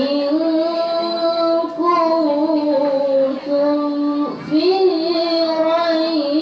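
A young girl's solo voice reciting the Qur'an in melodic tilawah style through a microphone, holding long ornamented notes. There is a short break for breath about four seconds in before the chant picks up again.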